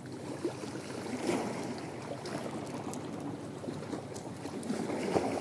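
Water lapping and trickling steadily at the shoreline, with a few faint clicks of fishing tackle being handled as a lure is clipped onto a snap.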